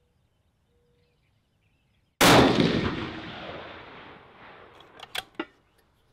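A single rifle shot from a 6.5 Creedmoor bolt-action rifle with a Defiance anTI action and a 22-inch Proof Research carbon-fibre barrel, a little over two seconds in, its report echoing and dying away over about two seconds. Near the end, a few sharp metallic clicks of the bolt being worked.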